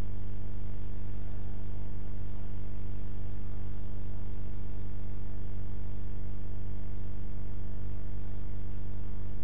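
Steady low electrical hum with a stack of overtones and a hiss over it, unchanging throughout, with no other sound.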